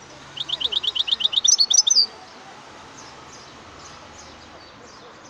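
European goldfinch singing a fast run of quick repeated notes, about a second and a half long, that climbs into higher notes at the end. Faint chirps are heard behind it.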